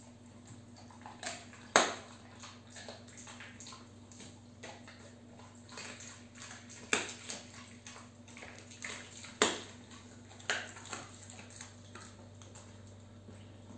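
A dog gnawing and crunching a hard dried chew treat: irregular sharp cracks and clicks, the loudest about two seconds in, with others around seven, nine and ten seconds in.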